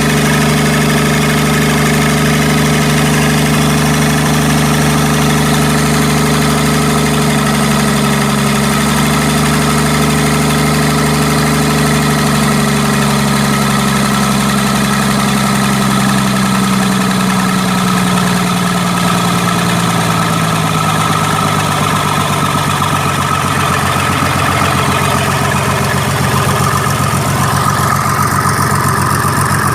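Mitsubishi 6D14 six-cylinder diesel engine of a 75 kVA generator set running steadily, its speed easing down over about a dozen seconds and settling at a lower, steady idle. The engine is freshly overhauled.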